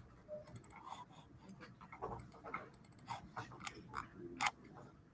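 Faint, irregular clicks and taps from a computer mouse and keyboard as someone works at a computer.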